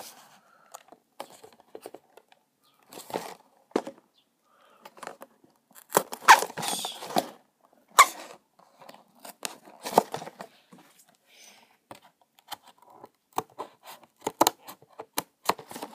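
A small cardboard figure box being handled and turned over in the hands: irregular scrapes, rustles and knocks with short gaps between them. The loudest rustling comes about six seconds in, followed by a sharp knock.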